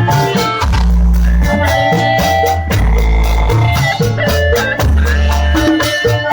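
Live Sundanese bajidoran music: steady percussion over a heavy bass line that moves every second or so, with sustained melodic tones held above.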